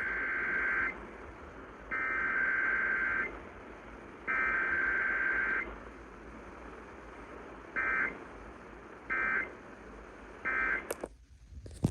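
Emergency Alert System SAME data bursts of a Required Weekly Test: three long, shrill, warbling digital header bursts about a second apart, then three short end-of-message bursts. A click near the end as the audio drops out.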